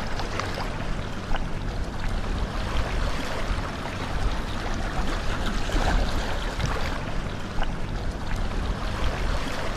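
Steady shoreline noise: seawater washing and trickling among rocks, under a low rumble of wind on the microphone, with a few faint clicks.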